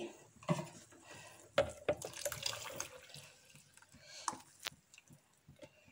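Rice ground in its soaking water being poured from a bowl into a metal pot of boiling milk: the liquid splashes and drips, with a few sharp knocks scattered through.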